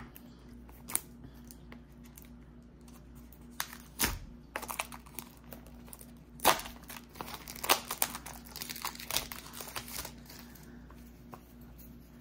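Packaging being crinkled and torn by hand while unwrapping a small boxed set of rune dice: a few faint clicks at first, then a run of crackles and sharp snaps from about four seconds in until about ten seconds in.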